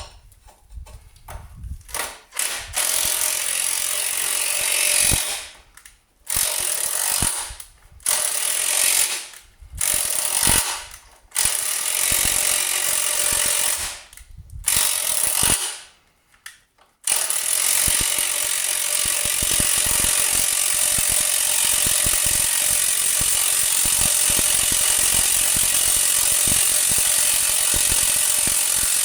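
Air impact wrench (windy gun) hammering at a seized, rusty 19 mm suspension bolt. It comes in a string of short trigger bursts with pauses over the first seventeen seconds or so, then runs continuously to break the bolt free.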